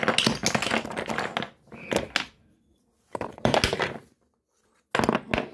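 Toy train's removable blocks knocking and clattering as they are pulled apart and handled right next to the microphone. The sound comes in several short bursts of rattling knocks with pauses between them.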